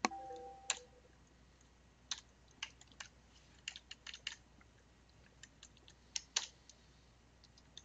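Computer keyboard keys clicking as someone types, irregular keystrokes in small clusters with short pauses between them.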